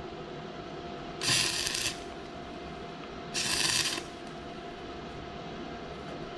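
Stick-welding arc crackling in two short bursts, each about half a second long, about a second and a half and three and a half seconds in, as the rod is touched to the thin steel pipe of a lawnmower handle, with a steady faint hum underneath.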